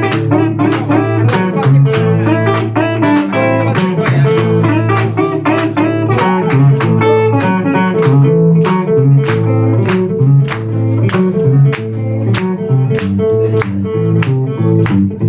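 A live band playing an instrumental groove: guitar chords over a moving bass line, with a steady cymbal beat of about three strokes a second.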